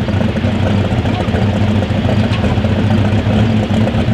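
Light super stock pulling tractor's engine running steadily at idle, a loud, even low drone that holds its pitch.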